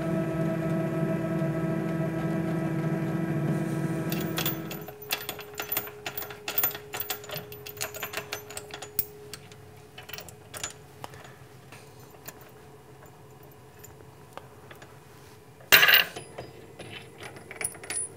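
A steady pitched hum for the first five seconds or so, then small metal clicks and clinks as the mill head's bolts and washers are worked loose by hand and handled, with one short, louder clatter near the end.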